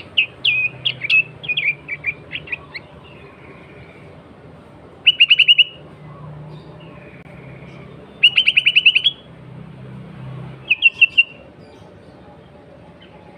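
Sooty-headed bulbul (kutilang) calling: a run of quick, sharp chirps, then three short bursts of rapid repeated notes spaced a few seconds apart.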